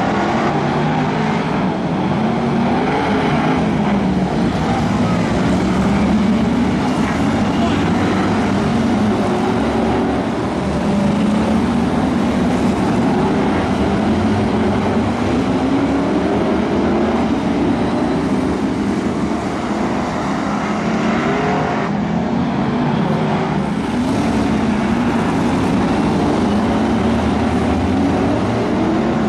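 A pack of BriSCA F1 stock cars' V8 engines racing round an oval, their pitch rising and falling over and over as the cars accelerate and lift.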